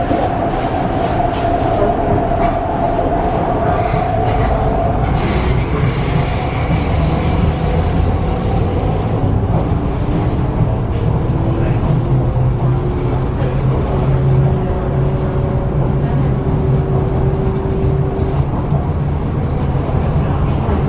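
MTR East Rail Line R-train running, heard from inside the carriage: a steady loud rumble of wheels on rail, with held whining tones from the traction equipment and a few clicks in the first couple of seconds.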